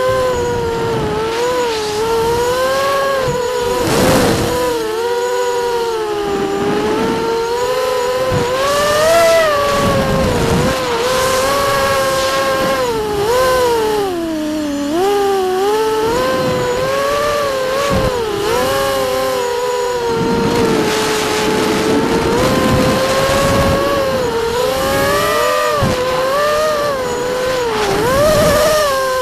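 Vortex racing quadcopter's electric motors and propellers whining, recorded on board, the pitch rising and falling continually with the throttle.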